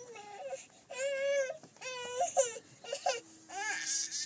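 A toddler crying and whining, a string of about five short, high-pitched wavering cries with brief pauses between them.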